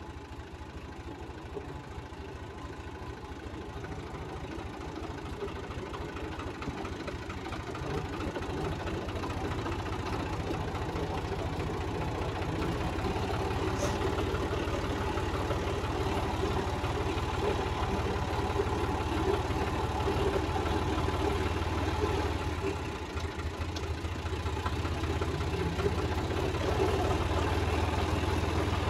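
Tractor diesel engine running steadily as the tractor is driven, getting gradually louder, with a brief dip a little past the middle.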